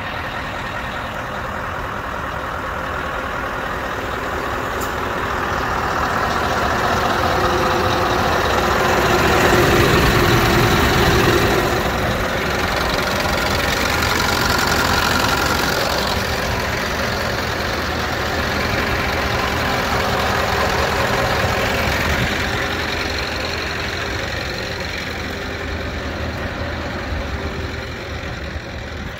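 Scania R620's 16-litre V8 diesel idling steadily, growing louder toward the middle and fading again near the end.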